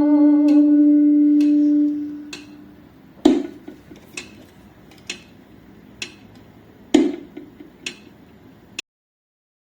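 A final sung note held and fading away over the first two seconds, followed by metronome-like clicks a little under one a second, with a louder accented click every fourth beat, stopping abruptly near the end.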